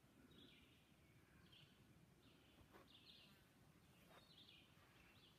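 Near silence with faint bird chirps, short calls coming about once a second.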